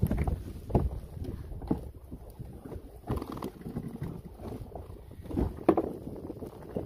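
Irregular knocks and thuds of a large wahoo being handled against a boat's gunwale while the fishing line is cleared from it, over wind rumbling on the microphone.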